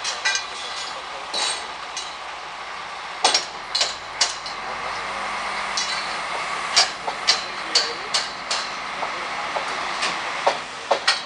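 Irregular sharp metal clanks and hammer blows ringing from scaffolding being put up, over the steady hum of the crane truck's engine.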